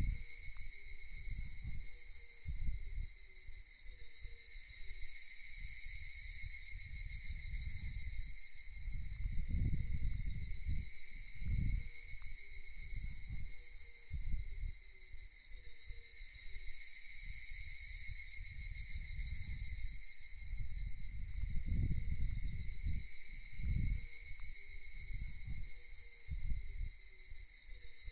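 A steady, high-pitched chorus of insects singing, with low rumbling noise that comes and goes beneath it, strongest about ten and twenty-two seconds in.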